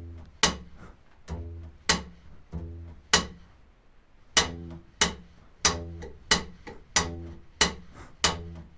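Upright double bass played rockabilly slap style: low plucked notes alternate with sharp slap clicks against the fingerboard. The notes on the slapped beats are muted by the left-hand fingers into dead ghost notes. After a short gap about halfway through, the pattern goes faster.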